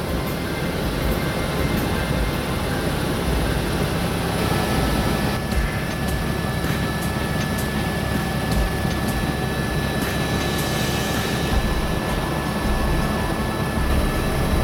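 Helicopter cabin noise in cruising flight: a steady drone of rotor and engine with a thin, steady high whine running through it.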